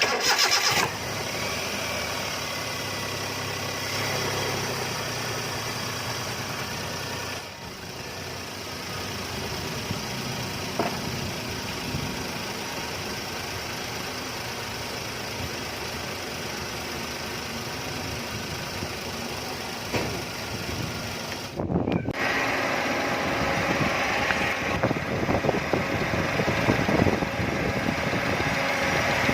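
Hyundai Eon engine idling steadily. The sound breaks off briefly twice, about a third of the way in and again about three quarters of the way in, and is louder after the second break.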